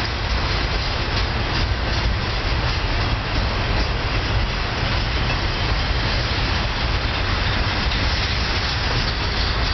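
Double-stack intermodal freight train's container cars rolling past on the rails: a steady rumble and rattle of wheels and stack cars.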